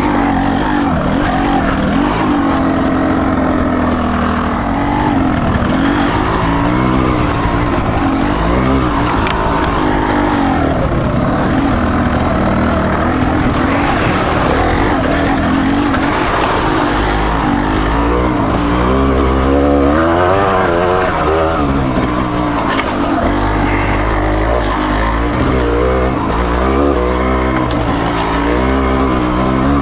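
Dual-sport motorcycle engine running under load on a steep trail, its pitch rising and falling again and again as the throttle is opened and closed.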